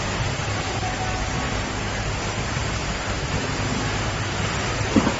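Packing machine with mechanical arms running: a steady mechanical hum and hiss, with one short knock near the end.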